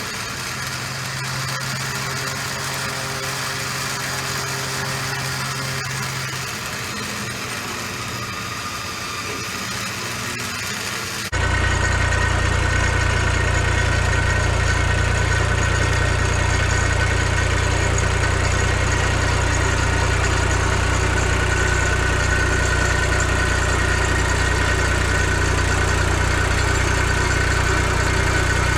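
A vehicle engine idling steadily. About eleven seconds in, the sound jumps abruptly to a louder, deeper engine hum with a steady whine above it, which then runs on evenly.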